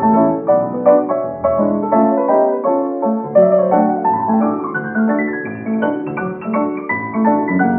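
Piano playing a lively light tune, quick runs of notes over a steady bass line.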